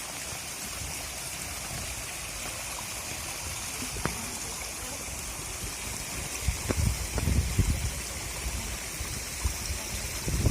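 Mountain stream running full after the winter rains: a steady rush of water. A single click comes a little before the middle, and a cluster of low thumps and rumbles about two-thirds of the way through.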